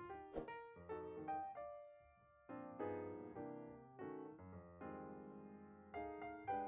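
Background piano music, chords struck and left to fade, with a brief click about half a second in.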